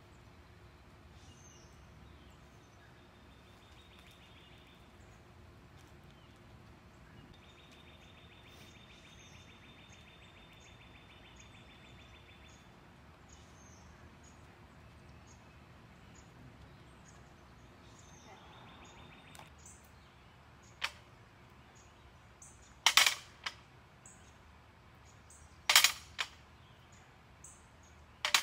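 Faint background of birds chirping, with a high buzzing trill that comes and goes. Near the end, four sharp clanks two to three seconds apart, the last three loud: weights set down hard on asphalt.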